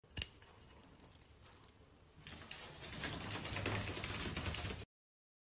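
Handling of an old metal flashlight: a sharp click, a few faint ticks, then a couple of seconds of dense mechanical clicking and rattling that grows louder and cuts off abruptly.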